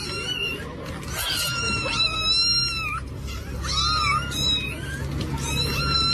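A cat meowing repeatedly in high, drawn-out calls, each up to about a second and a half long, over a low steady hum.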